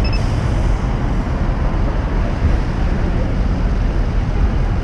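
Steady street traffic noise, with a short high electronic beep right at the start.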